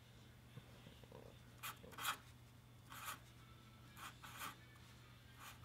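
Sharpie permanent marker writing on paper: a few short, faint pen strokes, in small clusters about two, three and four seconds in.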